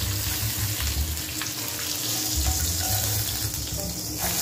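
Whole chicken sizzling as it fries in a stainless steel pot, a steady hiss, with low knocks and scrapes of the metal spatula and tongs against the pot as the bird is turned.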